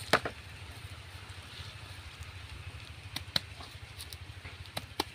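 Hands digging and scraping in dry, cracked mud and grass, giving a sharp click just after the start and a few fainter clicks and crackles later, over a steady low rumble.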